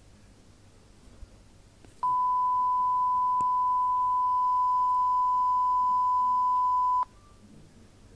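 A single long, steady beep at about 1 kHz, lasting about five seconds and starting and stopping abruptly: the classic censor bleep sound effect.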